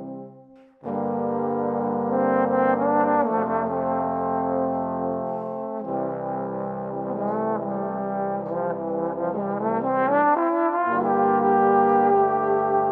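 Trombone ensemble in five parts playing a slow piece: the lower trombones hold long chords under a moving melody in the top trombone. The sound dies away at the start, and all parts come back in together just under a second in. The chord changes three times after that, with the lowest part dropping out for about half a second near the ten-second mark.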